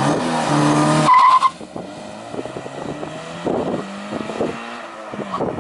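Subaru BRZ's 2.0-litre flat-four boxer engine revving hard as the car launches away, with a short high squeal about a second in. The engine note drops suddenly after about a second and a half and carries on fainter as the car pulls away down the road.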